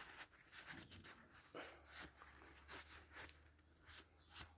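Near silence with faint, irregular rubbing and light clicks, typical of hand-wiping lapping compound off a freshly ground valve and its seat in the cylinder head.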